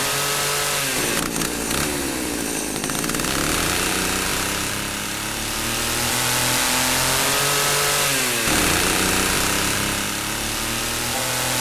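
Cartoon chainsaw sound effect running loud and revving. Its pitch sags about a second in and climbs back, then drops sharply and rises again near the end.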